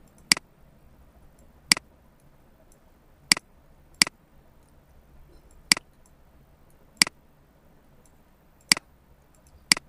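Computer mouse button clicking, eight sharp separate clicks at irregular intervals of about one to two seconds.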